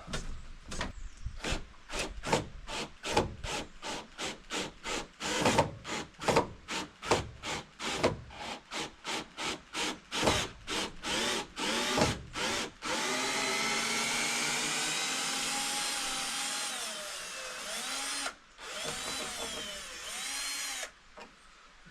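Power drill-driver backing screws out of a door frame. It starts in quick repeated trigger bursts for about 13 seconds, then runs continuously with its pitch wavering, cutting out briefly once before it stops.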